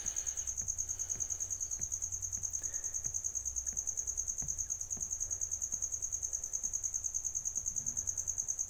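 A cricket chirping in a steady, high-pitched trill that pulses rapidly, about eight pulses a second, over a faint low hum.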